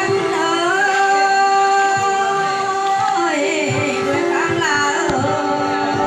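Background music: a Thai khắp folk song, a voice singing long sliding phrases over steady held drone notes.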